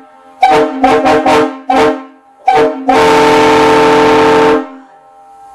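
Three-chime locomotive air horns sounding a chord in a quick run of about five short blasts, then one long blast of about two seconds. Each blast ends with a short echo.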